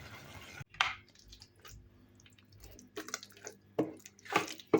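Cooked njahe (black beans) being mashed in a pot: a series of short, soft, wet strokes at uneven intervals.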